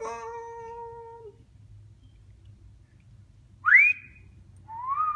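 African grey parrot whistling: a held note for about a second, then a quick upward-sliding whistle, the loudest sound, about three and a half seconds in, and a whistle that rises and then falls near the end.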